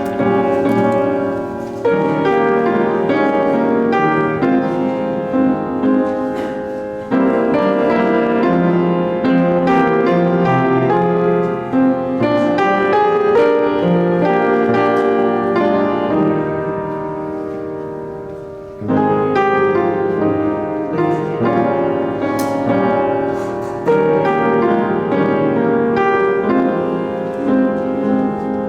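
Piano music playing slow sustained chords. Near two-thirds through, a phrase fades away before the next one begins.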